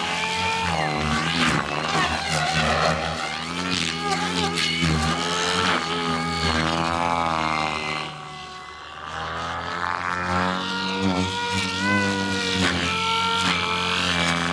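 Goblin Kraken electric RC helicopter flying 3D aerobatics: rotor blade buzz and motor whine, the pitch rising and falling with each manoeuvre. It fades about eight seconds in as the helicopter flies far off, then comes back loud.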